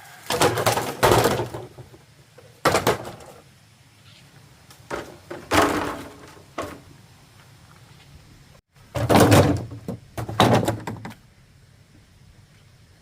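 A run of heavy knocks and thunks in uneven clusters, about eight in all, with quiet gaps between them.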